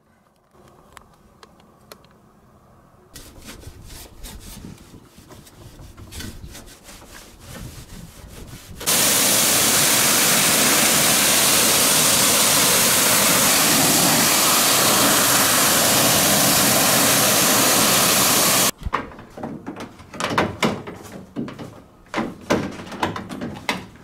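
A pressure-washer jet spraying water onto the washing machine's plastic base: a loud, steady hiss that starts abruptly about nine seconds in and cuts off sharply about ten seconds later. Before and after it come clattering and knocks of plastic parts being handled.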